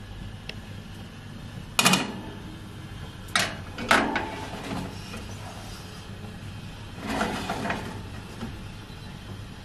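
A perforated metal pan of potato wedges being set onto a wire oven rack: sharp metal clanks about two, three and a half and four seconds in, then a longer scraping slide near the end, over a steady low hum.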